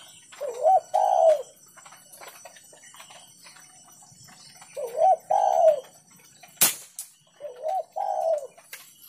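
Spotted dove cooing: three repeated phrases, each a short rising-and-falling note and then a longer one, a few seconds apart. A single sharp click comes about two-thirds of the way through.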